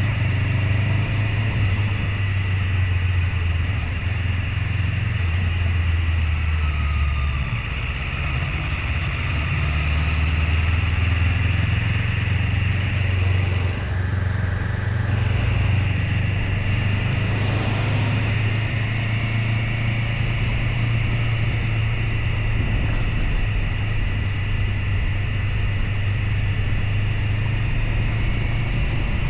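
Motorcycle engine running steadily while riding, with a constant rush of noise over it.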